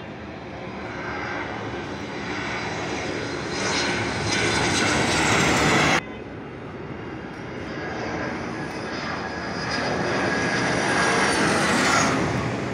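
F-7MB fighter jet's single turbojet engine on a low pass, the noise building steadily louder until it cuts off suddenly about halfway through. A second pass builds again to its loudest near the end, its whine dropping in pitch as the jet goes by overhead.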